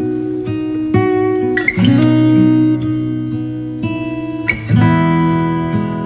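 Background music: acoustic guitar playing slow chords, a new chord struck every second or two and left to ring.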